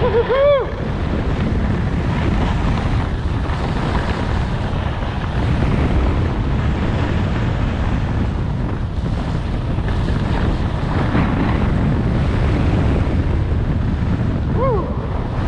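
Steady wind rushing over the microphone of a skier moving fast downhill. A short, high pitched shout comes about half a second in and another near the end.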